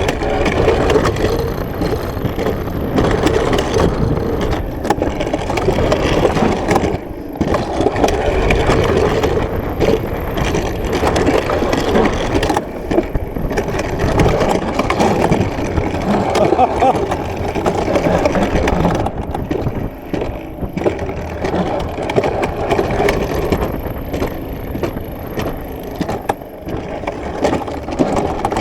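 Alpine coaster sled rolling along its metal rail, a continuous loud rolling rumble and rattle from the wheels.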